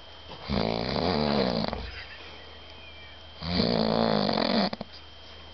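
A sleeping man snoring loudly: two long, wavering snores about three seconds apart, with quieter breathing between them.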